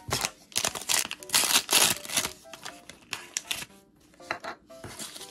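Small plastic packaging crinkling and rustling, with quick clicks of tiny plastic miniature pieces being handled. The rustling is densest in the first two seconds, then thins to scattered clicks.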